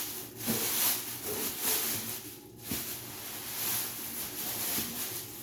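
Rustling and handling of packaging material, in several swells.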